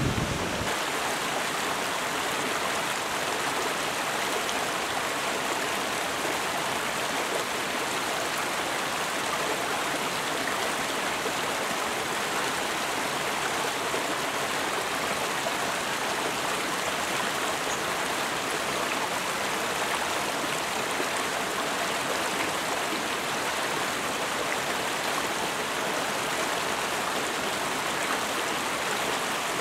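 Mountain stream rushing over boulders and small rapids, a steady, even sound of running water.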